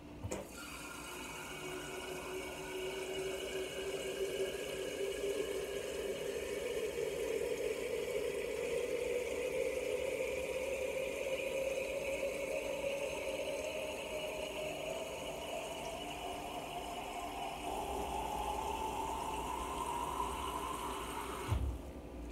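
Tap water running into a glass quart jar. The tone of the filling rises steadily as the jar fills, then stops abruptly near the end.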